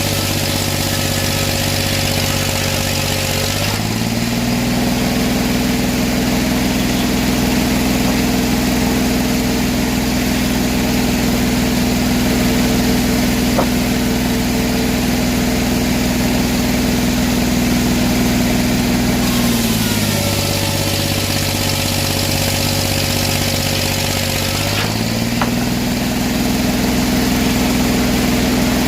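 Sawmill's engine running steadily, speeding up about four seconds in, dropping back to a lower speed around twenty seconds in, and speeding up again about five seconds later.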